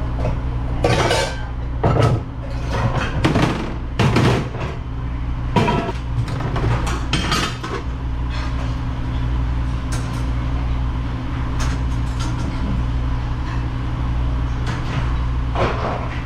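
Dishes and silverware clattering in a restaurant dish area, most busily in the first half, over a steady low machine hum.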